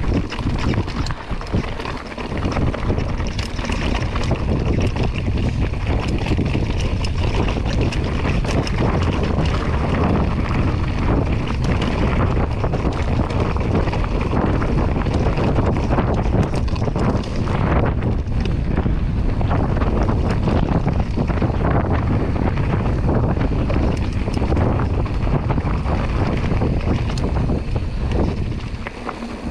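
Wind buffeting the microphone over tyres crunching on loose rock and gravel and the rattle of a Giant Stance 29 2 mountain bike riding down a rocky trail. The noise eases off near the end.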